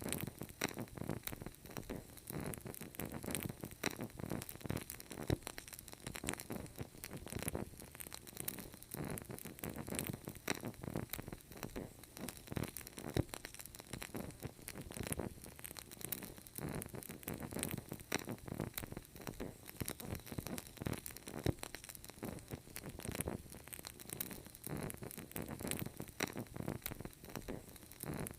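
Burning candle: dense, irregular small crackles and pops from the flame and wick, going on steadily.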